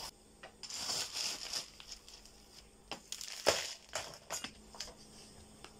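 Small stones rattling and crunching as they are handled and dropped into a flowerpot, then a hand trowel scraping in the pot with a few sharp knocks, the loudest about three and a half seconds in.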